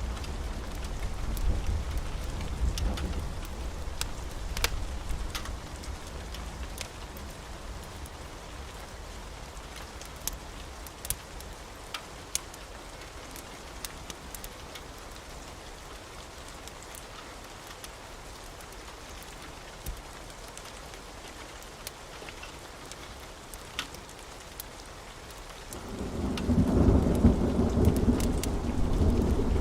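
Steady rain with rolling thunder: a low rumble dies away over the first few seconds, then rain with scattered sharp ticks, and a louder new roll of thunder begins a few seconds before the end.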